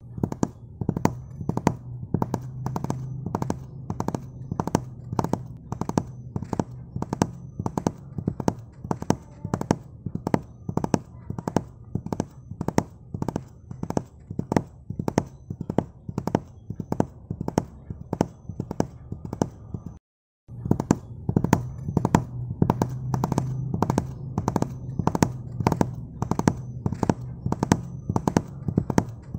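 Horse hooves clip-clopping at a steady trot while pulling a dokar, a regular beat of about three strikes a second over a low steady hum. The sound cuts out briefly about twenty seconds in, then the same clopping resumes.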